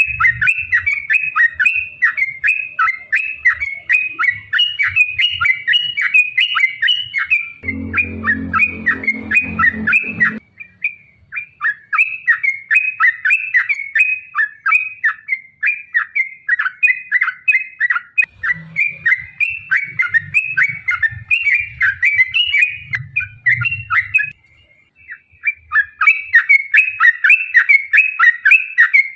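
Yellow-vented bulbuls (trucukan) singing a long, fast run of repeated chattering notes, with a brief pause near the end. A low rumble sits under the song for a couple of seconds about eight seconds in.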